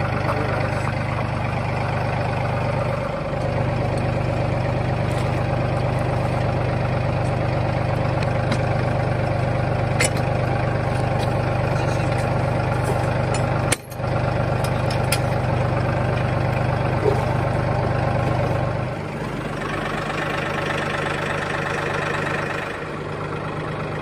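Tractor engine idling steadily, with a few faint metal clicks from the sickle mower being hitched to the three-point linkage. The engine sound drops out for a moment about halfway through and is a little quieter near the end.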